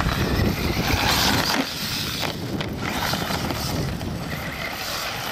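Acme Trooper radio-controlled truck driving over loose sand and dirt: a steady motor and tyre noise that rises and falls, with a low rumble during the first second and a half.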